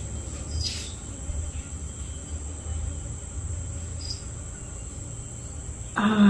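Room tone: a steady high-pitched whine over a low hum, with a woman's voice starting right at the end.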